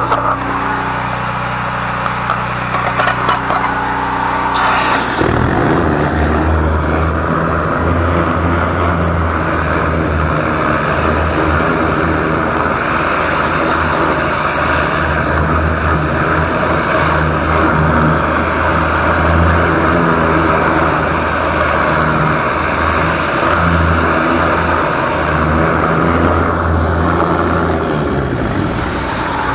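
13-horsepower engine-driven high-pressure sewer jetter idling, then about five seconds in going under load as the water jet runs through the drain pipe: a louder, rougher running with a hiss over it, which settles back to a steady idle near the end.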